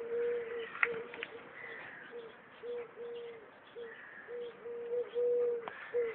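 Pigeons cooing: a run of short, low coos, all on one even pitch, one after another, with a few faint higher bird chirps over them.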